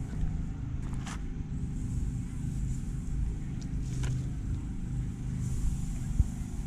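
Portable generator engine running steadily with a low hum. A couple of brief clicks and a short thump sound over it.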